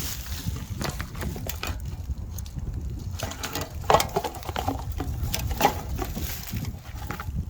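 Wind buffeting the microphone as a steady low rumble, with scattered sharp clicks and snaps on top, the loudest about four seconds in and another a little after five seconds.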